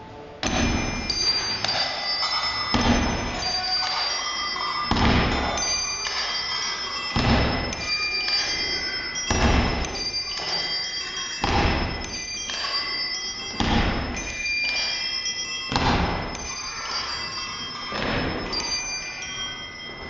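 Many bicycle bells ringing in overlapping rings as an improvised ensemble piece, over a heavy thump that comes about every two seconds in a steady beat.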